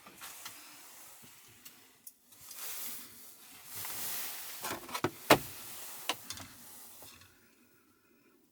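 Rustling and handling noises with a few sharp knocks, the loudest about five seconds in.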